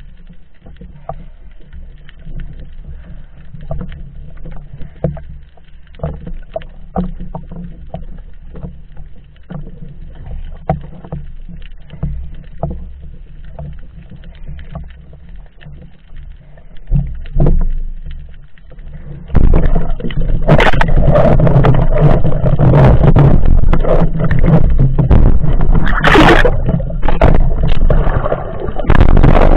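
Underwater sound through a camera housing: faint scattered clicks and crackles, then, about two-thirds of the way in, a sudden loud rush of water noise that carries on, with one sharp splash-like burst near the end.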